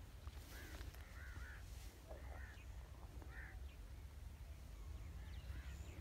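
Crows cawing faintly, about half a dozen short calls spread over several seconds, over a low steady rumble.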